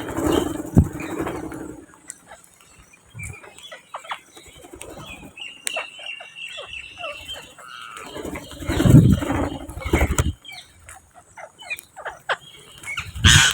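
Parrots flapping their wings in two loud flurries, one at the start and one about eight seconds in, with short chirps and clicks between them and one held high call near the middle.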